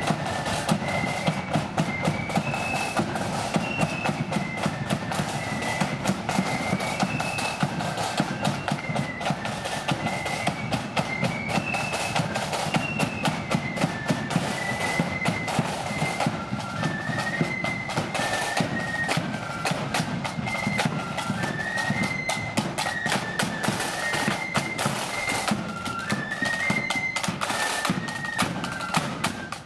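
Marching flute band playing a tune: a high melody on flutes over side drums and a bass drum keeping a marching beat.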